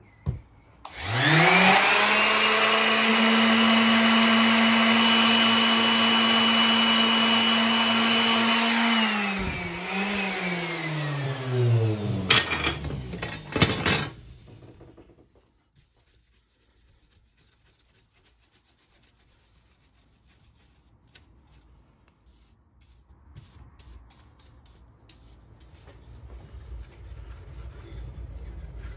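A small handheld power tool's motor sanding the new holes in an oak plaque. It spins up with a rising whine a second in and runs steadily for about eight seconds, then dips, briefly picks up again, and winds down with a falling pitch. Faint rubbing and handling follow near the end.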